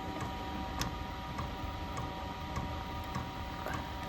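Diesel air heater running: its fuel dosing pump ticks evenly, a little under twice a second, over the steady hum and whine of the blower fan turned down to its lowest speed.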